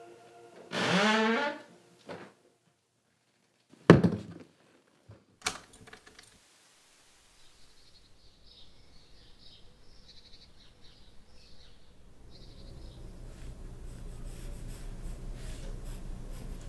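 A wavering pitched sound sliding down in pitch for about a second, then a heavy thud about four seconds in and a sharper knock a second and a half later. After that comes a faint fluttering hiss over a low rumble that slowly grows louder.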